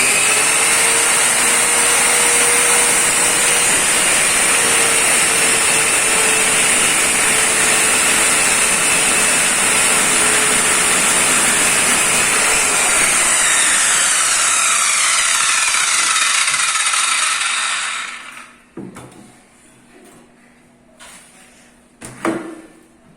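Total circular saw motor running at full speed for about eighteen seconds, with a steady whine. Its pitch drops over the last few seconds before it winds down and stops, followed by a couple of short knocks.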